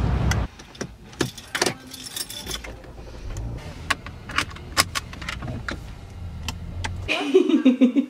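Someone settling into a car seat: a run of sharp clicks, rattles and knocks from keys and a seatbelt being pulled across and buckled, over a low steady hum. Near the end a toddler's voice cuts in.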